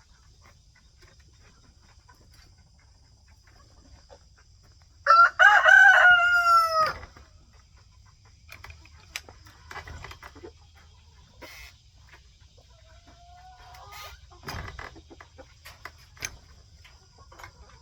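A rooster crowing once, about five seconds in, a loud call of about two seconds that falls slightly in pitch. Softer chicken clucks and a few light knocks follow.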